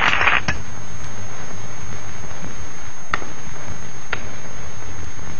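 Bollywood film-song music cutting off abruptly about half a second in. It gives way to a steady hiss with a thin high-pitched whine and two faint clicks about a second apart.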